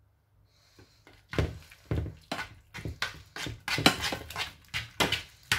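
Metal spoon stirring and scraping thick béchamel sauce mixed with hake and onion around a frying pan, in repeated irregular strokes starting about a second in.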